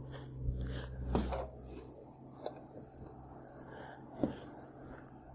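Faint rubbing of a rag wiped over a fiberglass sump wall, with a few light knocks from handling. Under it runs a low steady hum that fades out about two seconds in.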